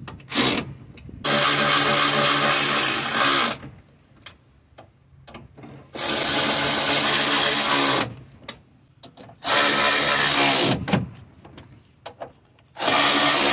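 A cordless power tool running down the 13 mm water pump bolts in five bursts: a brief blip, then runs of about one to two and a half seconds, each winding down at its end.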